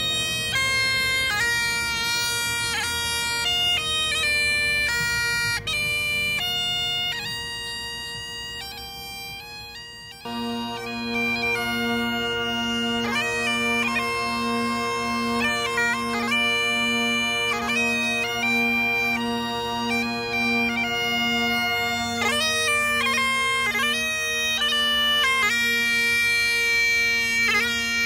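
Bagpipes playing a melody on the chanter over steady drones. The sound fades about seven seconds in and the pipes come back in strongly about ten seconds in.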